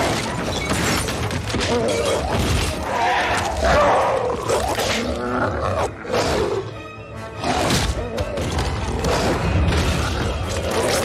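Film fight soundtrack: dramatic orchestral music over repeated crashes, smashing and heavy impacts, with werewolves snarling and roaring. It drops briefly quieter about two-thirds of the way through.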